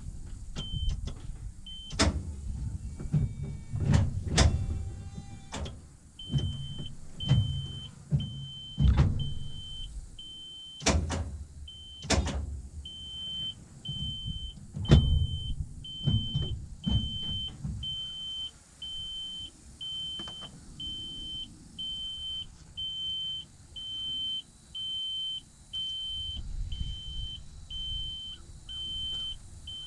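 A machine's warning beeper sounds in short high beeps about once a second, from a few seconds in onward. In the first half there are several sharp clicks and short low rumbles as the R72 is tried and does not start, a fault the owner puts down to the solenoid or the starter.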